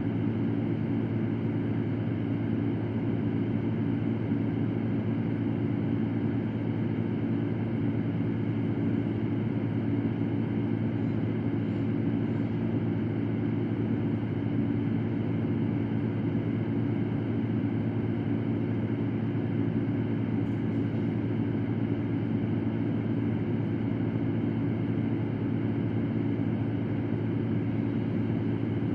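Electric fan running steadily: a constant whooshing hum with a low drone, unchanging throughout.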